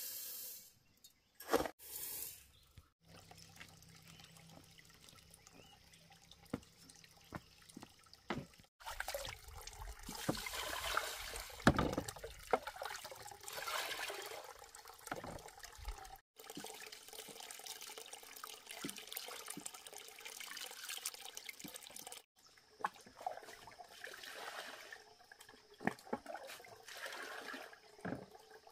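Water poured from a bamboo tube into a metal pot of raw rice, splashing as the rice is washed by hand, with small clinks and knocks of handling.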